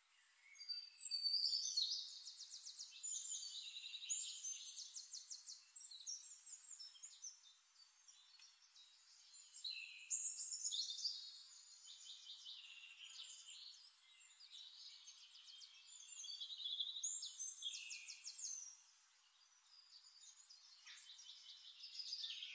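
A songbird singing long phrases of rapid, high-pitched trills and chirps, in three or four bursts of a few seconds with short pauses between.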